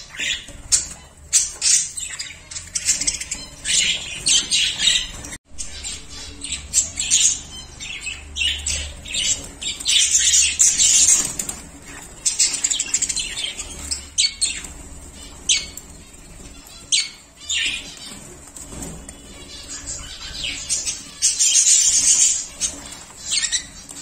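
A flock of budgerigars chirping and chattering, with many short sharp chirps and brief wing flutters; the chatter swells into longer bursts about halfway through and again near the end.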